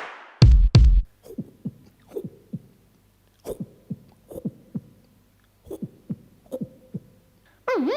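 A man's mouth imitating a heartbeat: short, dull lub-dub thumps in pairs, repeating about once a second. It opens with two heavy booming bass hits, and near the end a loud warbling wail starts up.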